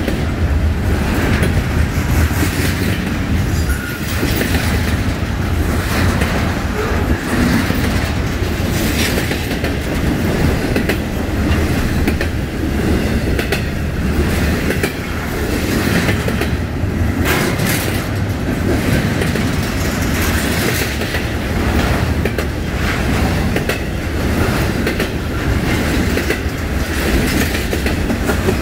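Intermodal freight train rolling past close by, double-stack container cars and trailers on flatcars: a steady loud rumble of steel wheels on the rails, with clicks as the wheels cross rail joints.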